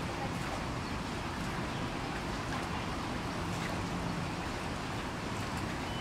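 Steady outdoor background noise, like distant traffic, with a faint low hum for a couple of seconds in the middle.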